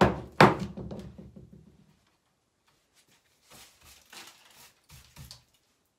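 A cordless drill set down on a wooden workbench: two sharp knocks, the second the louder, with a short rattle dying away. A few seconds later come faint scraping and handling sounds.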